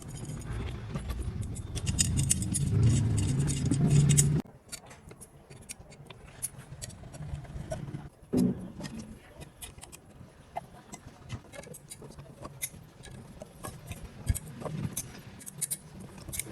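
An electric motor runs steadily, then cuts off suddenly about four seconds in, leaving light metallic clicks and clinks.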